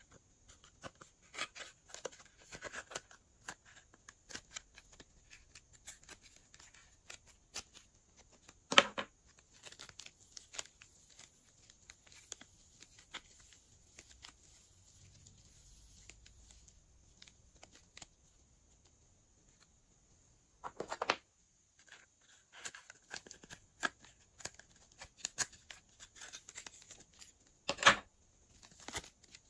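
Glossy slime being mixed and squished by hand: irregular sticky clicks and crackles, with three louder pops spread through it.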